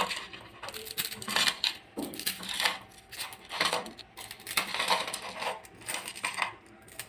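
A block of dry Maggi instant noodles being broken apart by hand: irregular bursts of crackling and snapping, with small pieces dropping onto a plate.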